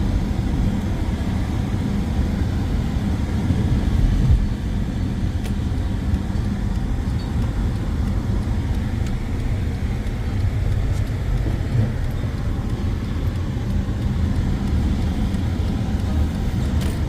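2014 Mercedes-Benz C300 4Matic driving, a steady low rumble of engine and road noise.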